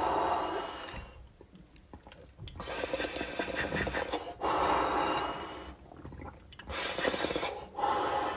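A person taking a hit and breathing out smoke: several long, airy breaths with short pauses between them.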